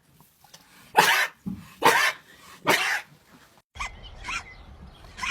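Sheep sneezing three times in quick succession, each a short sharp burst about a second apart, then a fainter sneeze about four seconds in.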